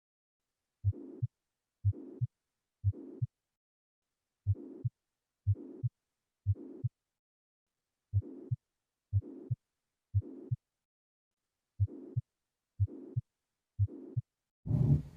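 Recorded stethoscope heart sounds, played in groups of three beats with short silences between the groups. Each beat is a low first thud, a whooshing murmur filling the gap, then a second thud: a murmur between the first and second heart sounds, in systole. Near the end a louder, noisier sound begins.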